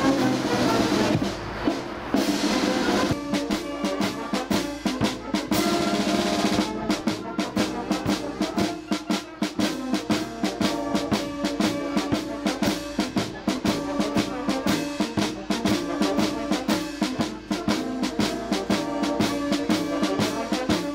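Background music: a steady, fast drum beat with snare drum over held chords, the drumming starting about three seconds in.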